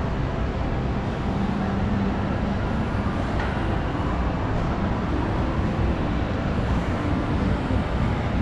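Shopping-mall ambience: a steady, dense background rumble with a faint hum, with no single sound standing out.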